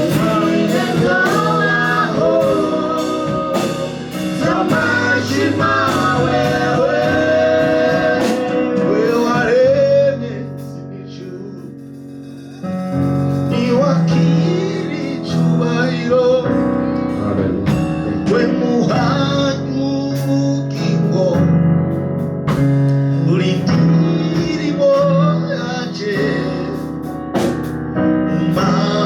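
Live gospel worship band playing a song with voices singing over sustained chords and a drum beat. The music drops back to a quieter passage about ten seconds in, then the full band comes back in a couple of seconds later.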